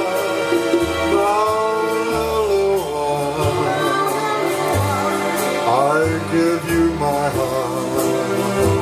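Live Hawaiian band music: a man sings a gliding melody over acoustic guitar, keyboard and conga drums.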